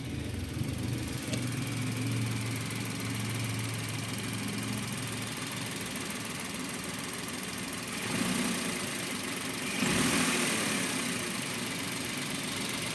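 Suzuki Every DA17V minivan's small three-cylinder engine idling steadily at low idle, heard from under the lifted seat. It carries a weird rattle at low idle that the owner suspects is a worn tensioner bearing. The noise swells louder twice, about eight and ten seconds in.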